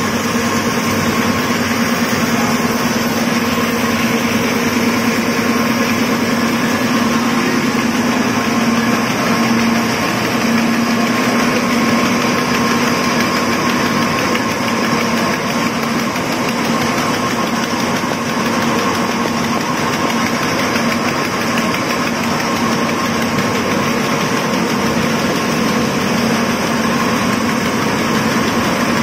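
Snack extruder machinery running steadily, a loud, unchanging machine noise with a constant low hum.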